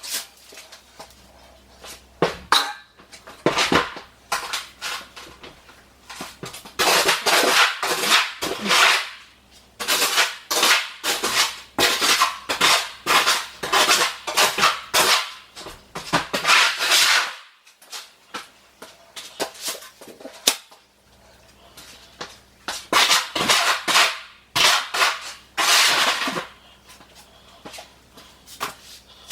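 A trowel scraping and slapping mortar, with rapid runs of sharp scrapes and taps in bursts of several seconds and short pauses between them.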